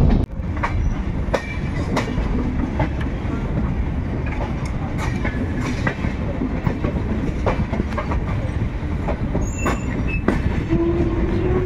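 Passenger train running on the track: a steady rumble with irregular clicking and clattering of wheels over rail joints. A short steady tone sounds near the end.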